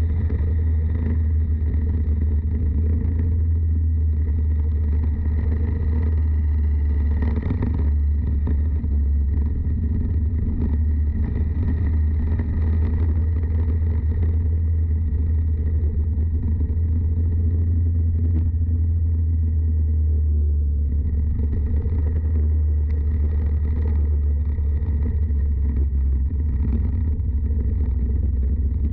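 Go-kart audio from a GoPro mounted on the kart: a loud, steady low rumble with no clear rise and fall of revving.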